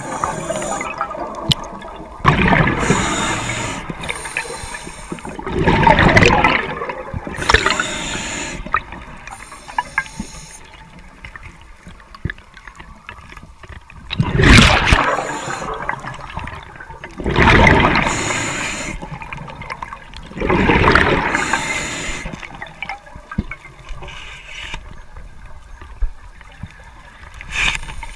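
Scuba diver breathing through a regulator underwater: a loud gush of rising exhaled bubbles every few seconds, with a quieter high hiss between the gushes and a longer lull in the middle.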